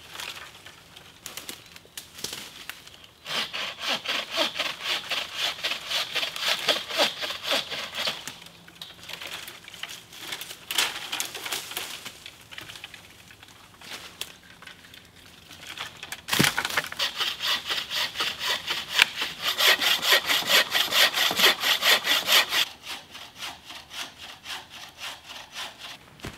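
Hand saw cutting through a branch in rapid back-and-forth strokes, about three a second, in two long bouts, for firewood. A single sharp knock comes about two-thirds of the way in, then the sawing resumes and tails off into fainter strokes.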